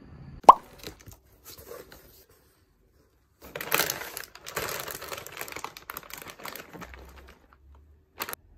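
Plastic snack packaging crinkling and items rustling as a cardboard box of groceries is unpacked, with a sharp click about half a second in and a short rustle near the end.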